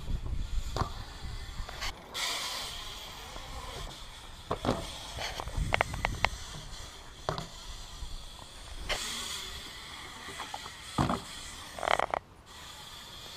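BMX bikes riding on a concrete skatepark: tyres rolling over the concrete with wind rumbling on the camera microphone, broken by several sharp knocks and clacks of the bikes landing and hitting the concrete.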